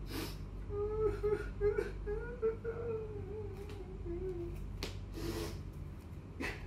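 A man's acted sobbing: a wavering, whimpering whine for a few seconds, then a few sniffling breaths.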